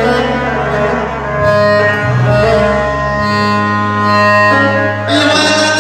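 Instrumental introduction to an Arabic mawwal: a sustained, bowed-string-like melody over held bass notes that change pitch a couple of times.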